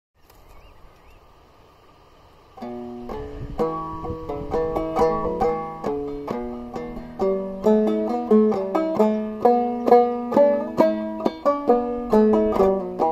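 Five-string banjo played clawhammer style, coming in about two and a half seconds in after faint background hiss: a march tune of plucked notes in a steady, brisk rhythm.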